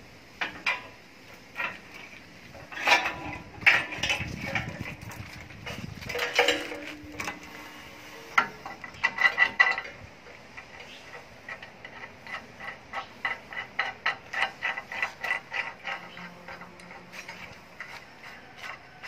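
Metal clicks and clanks from the roller chain and sprocket mechanism of a QM4-45 mobile concrete hollow block machine being worked by hand. There are several louder clanks in the first half, then a run of quick, even ticks about five a second.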